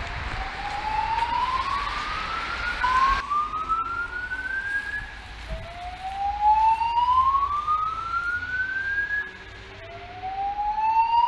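Station fire alarm speakers sounding a rising whoop evacuation tone, sweeping upward in pitch about four times, each sweep lasting two to four seconds. A background hiss cuts off about three seconds in.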